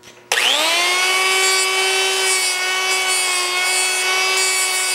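Cordless die grinder with a small cut-off wheel starting up just after the start, its whine rising quickly to a steady pitch and holding there, with a hiss from the wheel cutting into a steel spacer ring. It is grinding a V into a crack so that the ring can be TIG welded.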